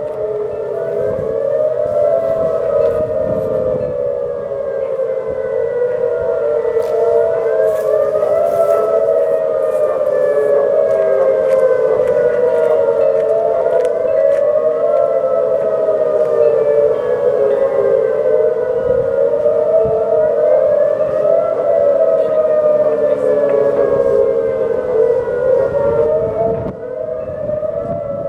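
1983 Federal Signal Thunderbolt civil defense siren sounding on test, loud and continuous, with Whelen 2810 sirens sounding an imitation Thunderbolt tone behind it. The tones wail up and down in pitch, each rise and fall taking about six seconds.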